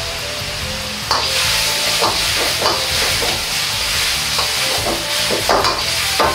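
Stir-frying in a wok over a high gas flame: chicken, vegetables and cashew nuts sizzling with a steady hiss that grows stronger about a second in, while the metal ladle scrapes and knocks against the wok about ten times, the sharpest strokes near the end.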